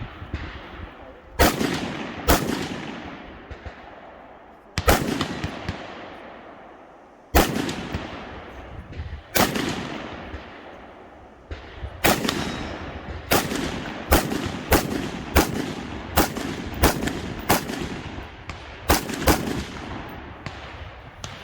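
Rifle shots at an IPSC rifle stage, each followed by a long rolling echo. For the first half they come singly, a few seconds apart. From about halfway they come as a quicker string, roughly one shot every half second to second, with fainter shots in between.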